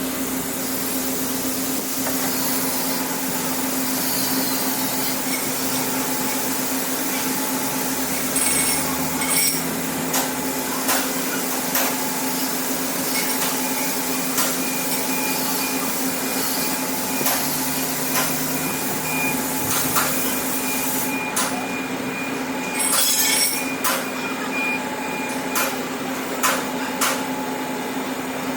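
Workshop machinery running steadily with a constant hum and hiss, with scattered short metallic knocks and a brief rattle of clicks about 23 seconds in, during machining of a replacement excavator bucket pin.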